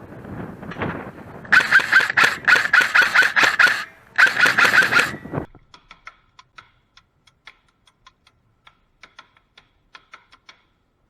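Airsoft electric gun firing two rapid full-auto bursts, a long one and then a shorter one, followed by a string of faint separate ticks.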